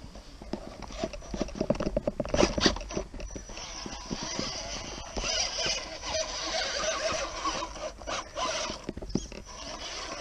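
Electric RC rock crawler driving, its motor and gears whining steadily, with clicks and knocks over the first few seconds as it comes down off the rocks.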